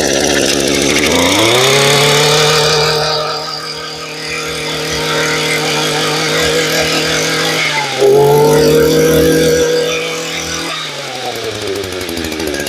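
Echo 26 cc two-stroke brush cutter engine, just started, revving up over the first second or so and held at high speed. The revs dip briefly and pick up again about 8 seconds in, then it drops back to a steady idle near the end. It runs smoothly.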